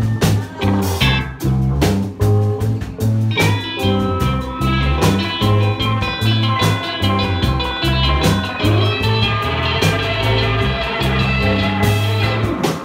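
Live rock band playing: electric guitar over a drum kit, with low bass notes held under a steady beat of drum hits. About three and a half seconds in, a busier, higher guitar line joins.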